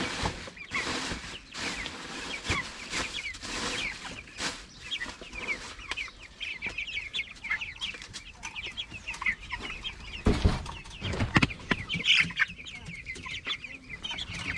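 A flock of 22-day-old native chicks peeping and clucking, with many short high calls overlapping throughout. A couple of dull thumps come about ten seconds in.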